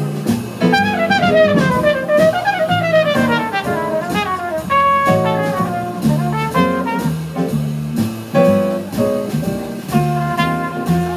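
Jazz big band playing live. A trumpet plays a solo line that runs down and back up over the band, with double bass, piano and drums keeping time beneath.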